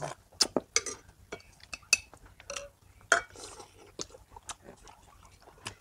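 Metal spoons and chopsticks clinking and tapping against ceramic soup bowls and plates during a meal: scattered sharp clinks, a few ringing briefly.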